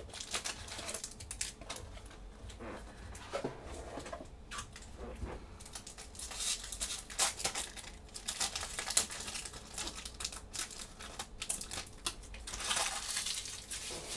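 Foil wrapper of a Magic: The Gathering collector booster pack crinkling and tearing as it is opened, with the cards inside rustling. The crinkling comes in irregular bursts, the longest near the end.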